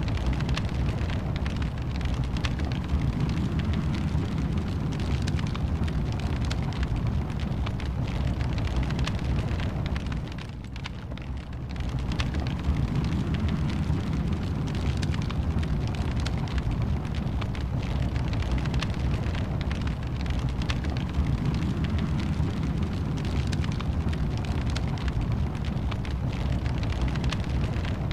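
Wood fire burning in a fireplace: a steady low rumble of flames with frequent sharp crackles and pops, briefly quieter for a second or two about ten seconds in.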